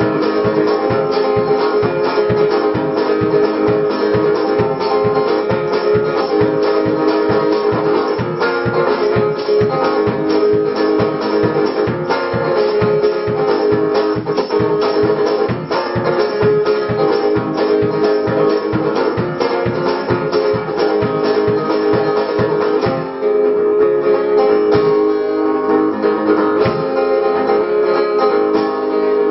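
Acoustic guitar strummed in an instrumental passage of a live song, over a steady low beat that eases off in the last few seconds.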